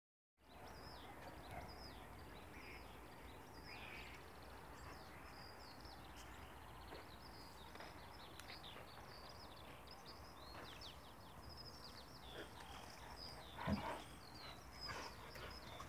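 Small birds chirping in short high notes throughout, over a faint steady low rumble, with one brief louder sound from the dogs playing near the end.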